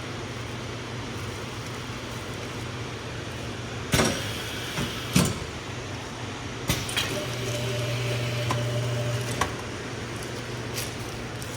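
Semi-automatic heat shrink-wrapping machine at work: a steady fan hum, two sharp clunks about four and five seconds in, then a louder hum for about two seconds that ends with a click.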